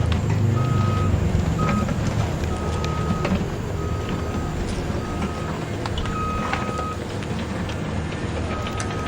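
Yigong YG28F RC bulldozer working: a steady low rumble with scattered clicks, and a reversing beeper sounding short beeps of one pitch at irregular intervals.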